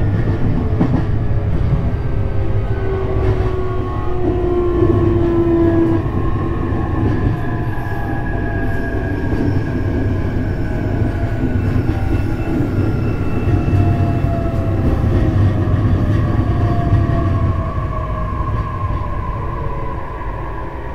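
JR East E531 series electric train running, heard inside the car: a steady rumble of wheels on rail with several whining tones from the traction motors and inverter sliding slowly down in pitch as the train slows. The sound eases off near the end.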